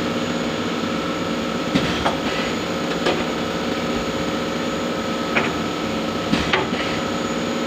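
CNC milling machine running with a steady hum of several constant tones, with a few short knocks or clicks scattered through.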